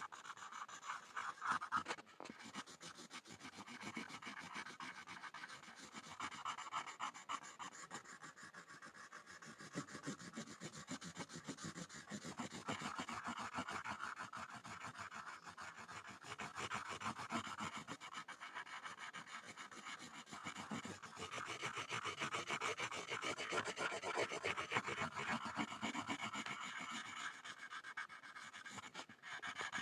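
Pencil scribbling on a board: continuous scratchy strokes of graphite on the surface, growing louder and softer as the scribbling goes on.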